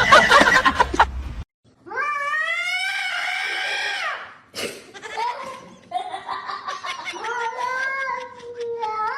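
A cat giving two long drawn-out meows, each rising and then falling in pitch, with a short call between them. Before them, loud music cuts off abruptly about a second and a half in.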